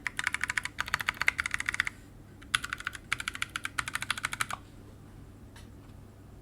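Typing on a Reviung41 keyboard with Shogoki tactile switches (65 g springs), an FR4 plate, an open undampened case and PBT OEM-profile keycaps: quick runs of key clacks in four bursts with short pauses. The typing stops about four and a half seconds in.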